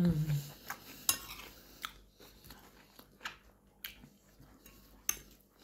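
A short closed-mouth 'mmm' hum at the start, then a metal spoon clicking against a ceramic soup bowl several times, with quiet eating noises between.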